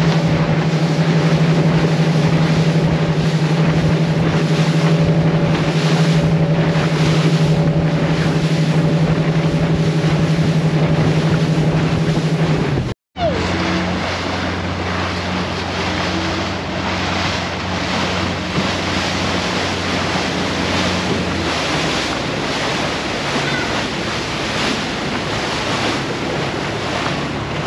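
Boat motor running at a steady pitch under a rush of wind and water, with wind buffeting the microphone. About halfway through, the sound cuts out for an instant and comes back with a lower engine tone, which drops away some seconds later, leaving the wind and water noise.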